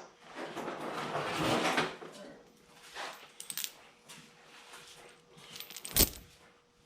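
Shop handling noises while the engine is made ready to lift: a scraping, rattling stretch in the first two seconds, a few light clicks, and one sharp metallic knock about six seconds in.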